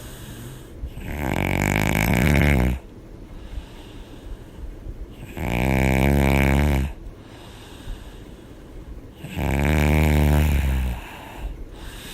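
A woman snoring hard in her sleep: three long, loud, buzzing snores about four seconds apart, with quieter breaths between them.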